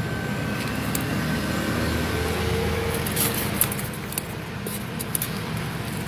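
Hand digging through damp potting soil in a planter box, with soft scrapes and rustles clustered in the middle of the stretch, over a steady low background rumble.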